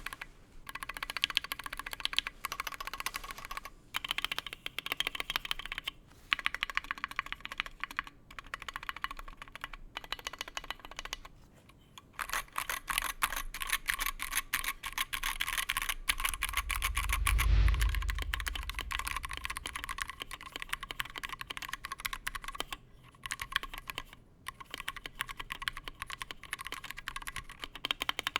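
Typing on a Wooting 60HE magnetic-switch keyboard fitted in a KBDfans Tofu60 aluminum case: fast runs of key clacks with short pauses between them. About two-thirds of the way through, a low rumble swells and peaks under the typing.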